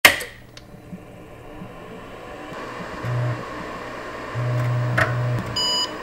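Retro electronic intro sound effect, like an old computer screen powering up. A sudden crackle at the start, then a steady hiss, a low electrical buzz that comes on twice, a click, and a short electronic beep near the end.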